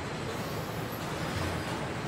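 Steady assembly-hall background noise: a low hum under an even hiss, with no distinct knocks or clicks.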